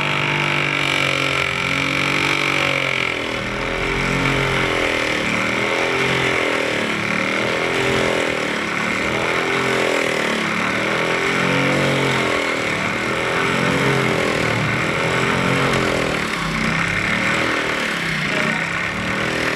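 Bench grinder motor running with a rubber shock-absorber bushing held against its grinding wheel to trim it down. The steady hum wavers up and down in pitch again and again over a grinding hiss.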